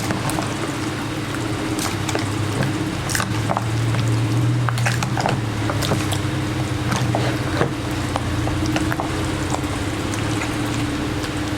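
Whole chicken being mixed and worked into a wet yogurt and green-chilli marinade with oil: squelching with scattered small clicks, over a steady low hum.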